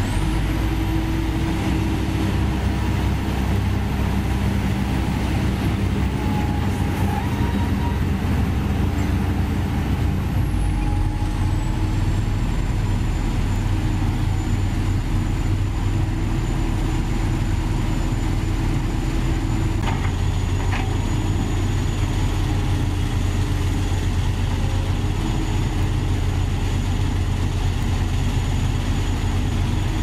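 Heavy crawler excavators' diesel engines running steadily under working load, the nearest a Kobelco SK200. A high thin whine climbs about a second in and drops back about ten seconds in.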